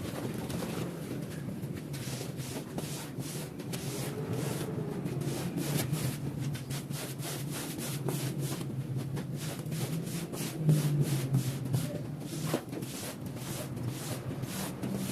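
Quick, irregular rubbing strokes on a rug, several a second, over a low steady hum.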